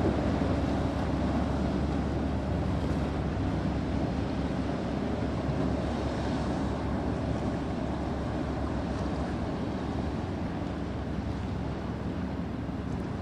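Boat engines running in a rough inlet, mixed with a steady rush of surf and wind on the microphone. The noise eases slowly.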